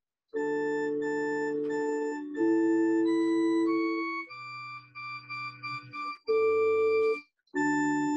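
Electronic organ playing a slow sequence of held chords, each starting and stopping abruptly, with a quieter, choppier passage in the middle and brief breaks between phrases.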